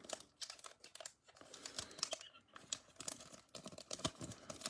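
Foil wrapper of a trading-card pack crinkling and tearing as it is opened, a dense run of irregular small crackles and clicks.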